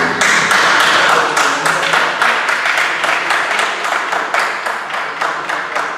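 Spectators applauding the end of a judo bout, a dense clapping that starts all at once and slowly dies down near the end.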